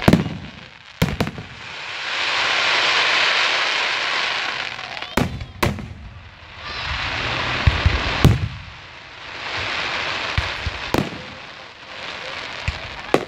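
Aerial fireworks shells bursting in a display: about eight sharp bangs, some in quick pairs, with long swells of dense hiss between them.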